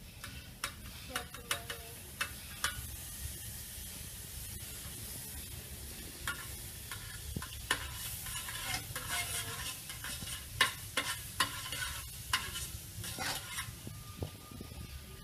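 Butter sizzling as it melts in a hot frying pan, with a steady hiss. Metal tongs push it around, clinking and scraping against the pan in short bursts of sharp clicks.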